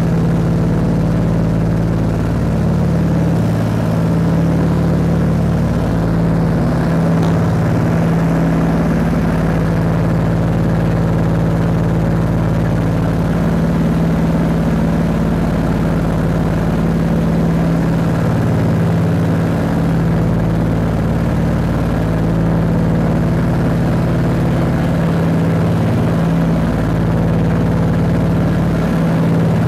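Scottish Aviation Twin Pioneer's two Alvis Leonides radial piston engines and propellers droning steadily in cruise, heard from inside the cabin.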